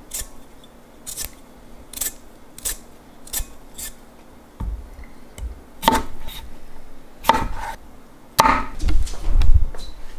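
Hand vegetable peeler scraping strips off a raw potato in short, quick strokes, then a chef's knife cutting the potato on a wooden cutting board with knocks on the board. Near the end come louder low thumps and rumble.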